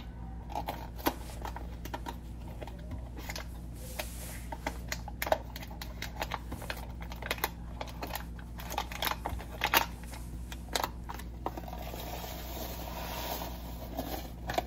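A cardboard Jiffy corn muffin mix box being opened by hand: scattered small clicks and snaps of the cardboard flaps, with a longer papery rustle near the end as the inner bag is reached.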